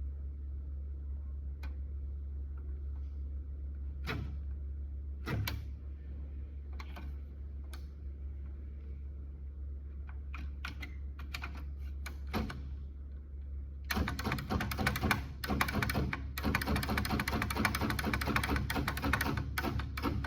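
Electric typewriter being typed on: a few separate key strikes, then a fast, continuous run of typing for the last six seconds or so, over a steady low hum.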